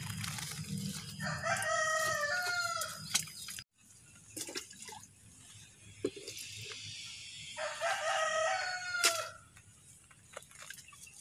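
A rooster crows twice, once about a second in and again about eight seconds in, each crow falling in pitch at the end. Scattered sharp knocks of a spade blade cutting into wet soil around a durian seedling's root ball sound between the crows.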